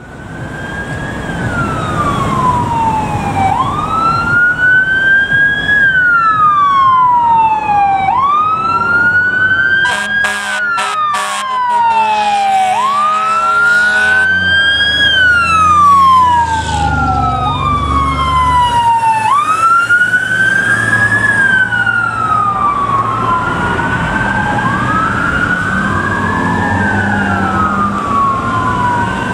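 Fire engine sirens wailing, each sweep rising quickly and falling slowly about every four seconds, over the low rumble of the trucks. About ten seconds in, an air horn sounds in short blasts and then a held blast lasting a few seconds. Near the end a second wailing siren overlaps the first, out of step.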